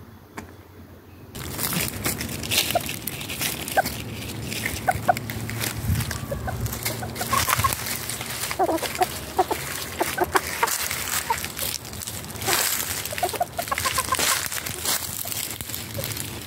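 A flock of chickens clucking, with many short calls scattered throughout. A steady rushing background noise comes up sharply about a second and a half in.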